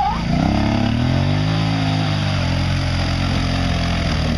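Quad bike engine revving under load in deep mud: its pitch climbs over the first second, eases back down, and settles to a steady lower running note about halfway through.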